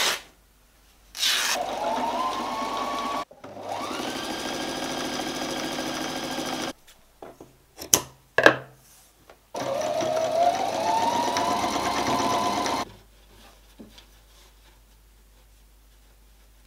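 Husqvarna electric sewing machine stitching a hem in cotton muslin in three runs, its motor whirring up to speed at the start of each. Between the second and third runs come two sharp snips of scissors cutting ribbon.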